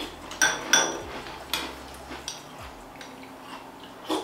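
Metal spoon clinking against a small glass cereal bowl while scooping cereal: two sharp, briefly ringing clinks about half a second in, then lighter taps and one more clink near the end.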